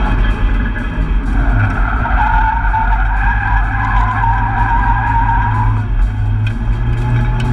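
Nissan S14 drifting, heard from inside the cabin: the engine runs hard throughout, and the tyres squeal steadily from about a second in until near the end.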